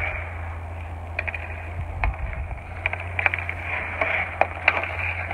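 Hockey stick blade tapping a puck on the ice in quick, uneven clicks while skate blades scrape across the ice.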